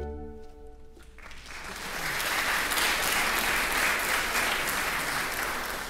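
Audience applause in a concert hall. The saxophone quartet's final chord rings away in the hall for about a second, then the clapping swells in and thins out near the end.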